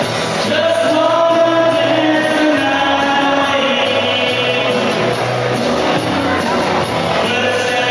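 A man singing long held notes into a handheld microphone through a PA, over amplified backing music with a steady beat.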